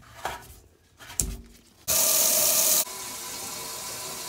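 A couple of light knocks, then a sink faucet turned on about two seconds in, water running hard into the sink; just under a second later the flow drops to a softer, steady hiss.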